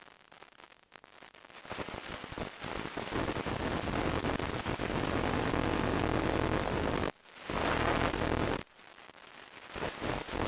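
Static hiss with a low buzz from an analog FPV video receiver's audio channel. It swells up about two seconds in, cuts out for a moment around seven seconds, then drops back about a second and a half later. The hiss is the sign of a weakening radio link to the plane, with the picture breaking up.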